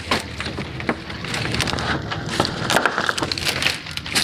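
Irregular crunching and crackling with many scattered sharp clicks, like footsteps through dry leaves and twigs.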